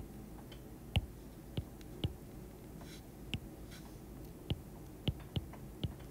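Stylus tip tapping and writing on an iPad's glass screen: about eight short, sharp clicks at irregular intervals.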